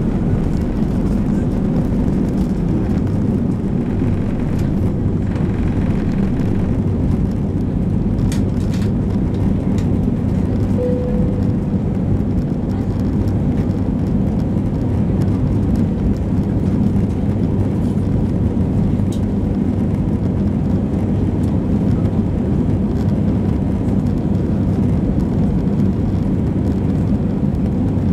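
Airliner cabin noise of an Airbus A320-214 at takeoff power, its CFM56 turbofans giving a loud, steady rush with a low hum as the aircraft leaves the runway and climbs away.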